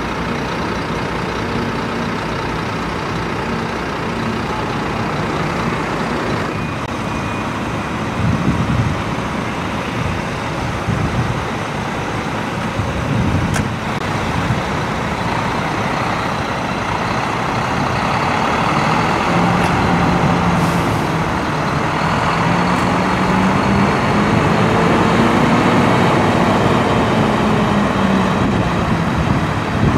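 Heavy lorry's diesel engine running as the lorry pulls away slowly. In the second half the engine note rises and then falls, growing louder.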